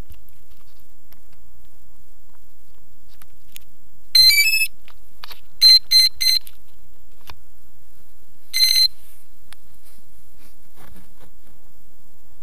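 Electronic beeps from the ArduCopter quadcopter's buzzer and speed controllers: a quick run of stepped tones, then three short even beeps, and after a pause one longer beep, the kind of signal tones it gives while starting up and arming.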